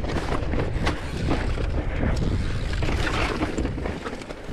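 Mountain bike riding down a rocky trail: wind buffets the microphone in a constant low rumble, with scattered sharp knocks and rattles from the tyres and frame over the rocks.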